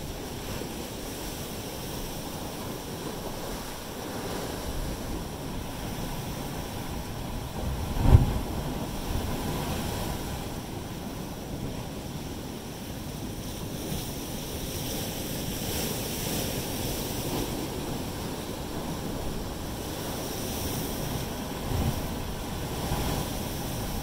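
Pacific surf surging and churning through a narrow basalt rock channel, a steady rushing wash. One sharp low thump stands out about a third of the way in, with a smaller one near the end.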